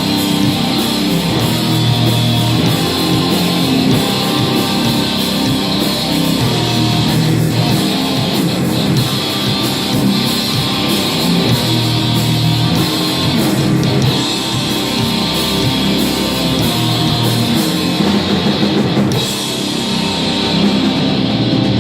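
Heavy metal band playing live: distorted electric guitars and bass over a pounding drum kit, loud and dense.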